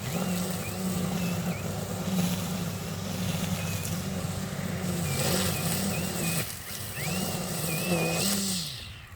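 Ego 56V multi-tool's electric string trimmer spinning at speed through dead grass, its motor whining steadily with a high whistle above, the pitch dipping as it takes load. It stops briefly about six and a half seconds in, starts again, then winds down just before the end.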